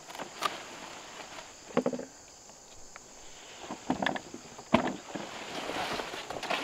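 Large squash leaves and vines rustling as they are pushed aside by hand, with several short snaps and knocks as young squash are cut from the vine and handled; the sharpest knock comes a little under five seconds in.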